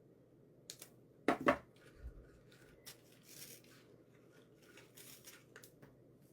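Crafting materials being handled: a few sharp clicks, the two loudest close together about a second and a half in, and brief rustling of artificial florals and greenery.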